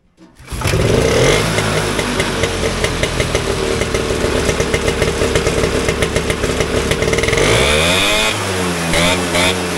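Single-cylinder two-stroke engine of a vintage AMF Ski Daddler snowmobile starting about half a second in and running steadily, freshly carb-tuned. Near the end it is revved up and blipped several times, the pitch rising and falling with each blip.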